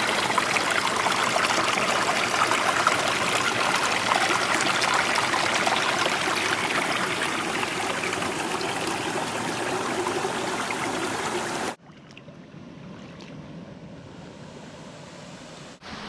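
Rushing water of a rocky mountain stream, a loud, steady hiss. About twelve seconds in it cuts off suddenly to a much fainter water sound.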